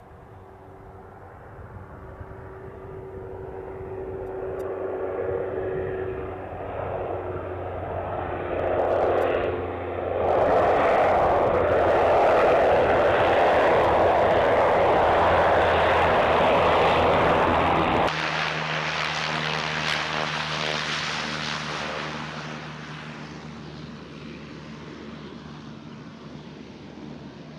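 MQ-9 Reaper's turboprop engine driving its pusher propeller: a steady engine drone that grows louder over the first ten seconds or so and holds loud. About two-thirds of the way through the sound changes suddenly, then fades away as the aircraft recedes.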